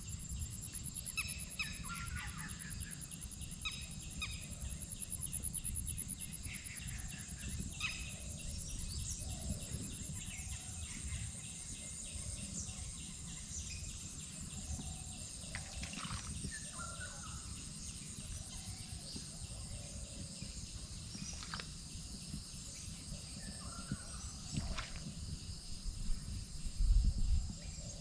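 Outdoor night ambience of insects trilling in a steady, rapidly pulsing high chorus, with scattered short animal calls and a constant low rumble. A few louder low bumps come near the end.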